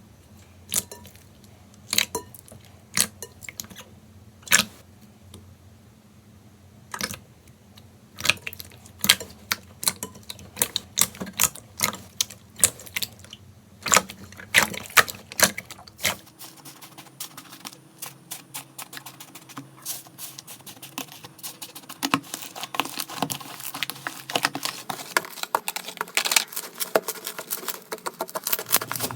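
Slime being pressed and played with by hand, giving sharp popping clicks, a few a second at first, then a denser run of crackling pops from about halfway.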